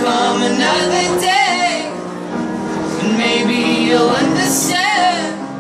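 Live band music: male and female voices singing together over held instrumental chords.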